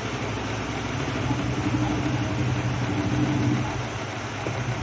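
A steady low mechanical hum with a rushing noise, swelling a little from about one second in and easing back near the end.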